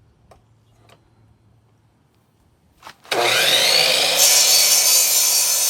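A few light clicks, then about three seconds in an electric power saw starts up, its whine rising over about a second, and runs loud as it cuts into a wooden post.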